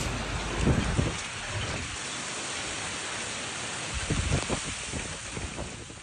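Heavy wind-driven rain hissing in a violent windstorm. Deep gusty rumbles come about a second in and again around four to five seconds in.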